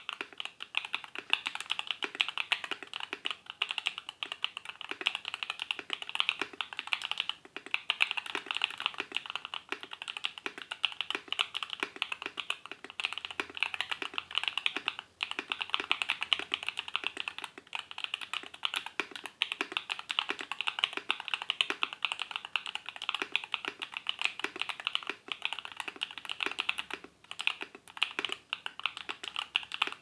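Fast, continuous typing on a foam-modded PressPlay Apollo61 Lightyear mechanical keyboard fitted with factory-lubed Akko V3 Cream Yellow Pro linear switches: a dense, clacky stream of keystrokes, with a few brief pauses.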